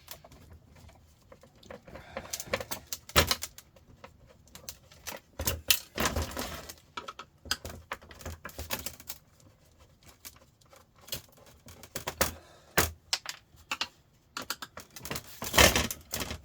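Irregular metallic clicks and clatters of screws, a screwdriver and metal parts being handled while a sandwich maker is taken apart by hand, with a louder burst of clatter near the end.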